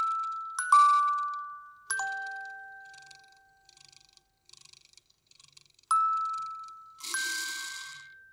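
Slow lullaby played on bell-like chimes: a few sparse struck notes, each ringing out and fading slowly, with a brief shimmering chime swell near the end.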